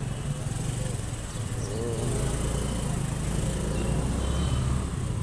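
Steady low motor-vehicle engine hum with road and traffic noise while moving through town streets, growing a little louder about two seconds in, over a hiss.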